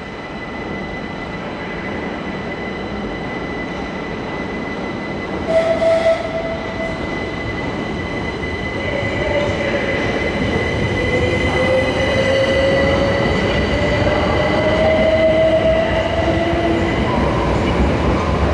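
Class 387 electric multiple unit pulling out and gathering speed, its traction motors whining in a tone that dips and then rises steadily in pitch over a rumble of wheels, with a steady high tone throughout. A brief loud double note sounds about six seconds in.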